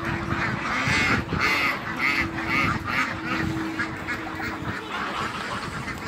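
A flock of domestic ducks and geese quacking and honking, many short calls overlapping.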